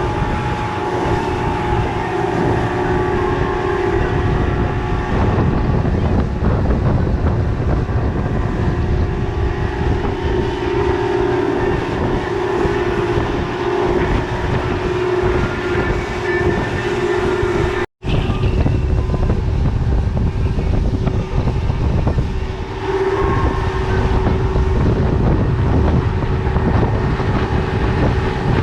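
Twin Yamaha outboard motors running steadily at speed on a boat under way, a continuous drone with a held tone over low rumble. The sound cuts out for an instant about 18 seconds in, then resumes.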